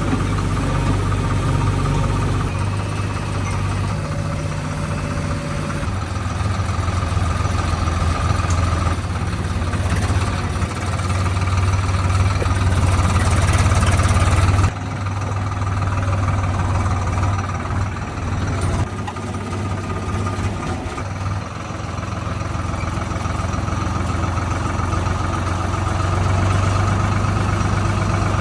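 Diesel engine of heavy earthmoving or farm machinery running steadily, with a sudden change in sound about halfway through.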